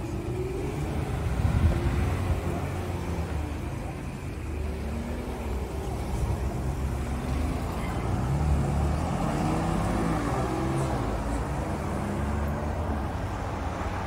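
Cars driving along a city street, a steady run of engine and tyre noise that swells as vehicles pass close, loudest about eight seconds in.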